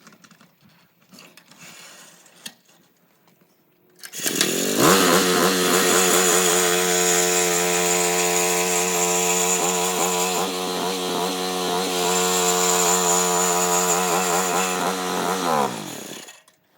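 Husqvarna Soff-Cut early-entry concrete saw starting up about four seconds in, coming up to speed and running steadily, with a high whine coming and going on top. It is shut off shortly before the end and winds down to a stop.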